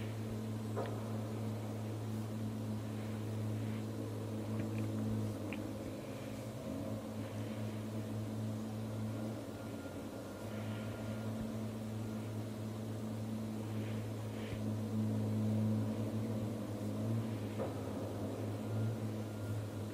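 A steady low mechanical hum that eases off and wavers for a few seconds near the middle, with a few faint clicks.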